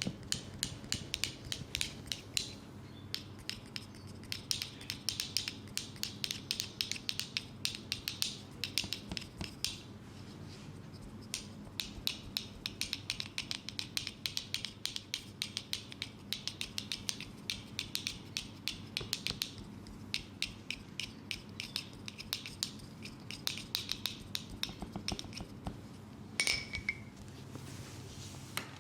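Rapid, irregular clicking and scratching from a handled object, many clicks a second in stretches broken by short pauses, over a steady low hum.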